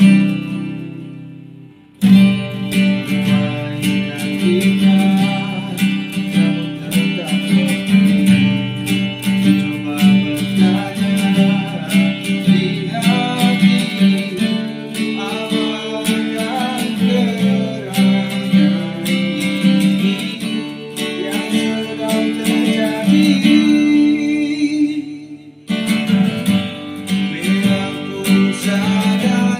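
Acoustic guitar strummed, with a man singing along. The playing dies away twice, near the start and about three-quarters of the way through, and each time starts again suddenly.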